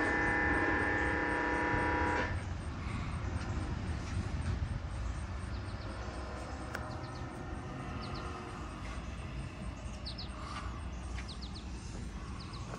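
Diesel locomotive air horn sounding one steady chord for about two seconds, then cutting off. A low rumble carries on underneath, with a few faint bird chirps in the middle.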